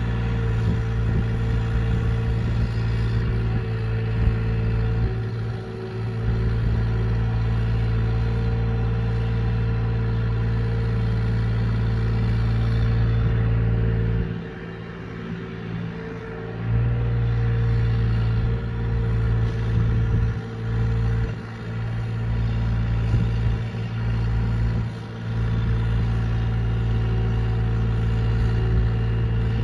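Hyundai R35Z-9 mini excavator's diesel engine running steadily as the machine digs, a constant low hum that eases off briefly several times, longest about halfway through.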